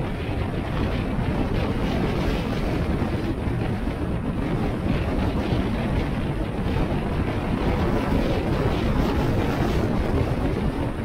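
A car driving at road speed: steady road and wind noise, heaviest in the low range, with wind buffeting the microphone.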